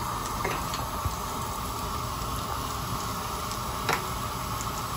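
Breaded chicken croquettes deep-frying in a pan of hot oil: a steady sizzle and bubbling with small crackles, and one louder pop about four seconds in. The oil is browning the breaded crust of croquettes whose filling is already cooked.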